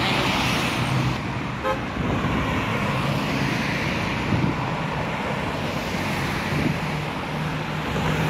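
Road traffic: cars passing close by at speed, a steady rush of tyre and engine noise, loudest at the start as one car goes by. One short beep sounds about a second and a half in.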